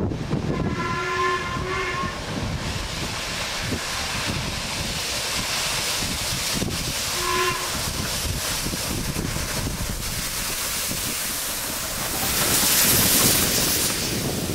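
Steam locomotive approaching with its train: the whistle gives two blasts close together, then one short blast about seven seconds in. Near the end a loud rush of noise swells as the engine and coaches pass close by.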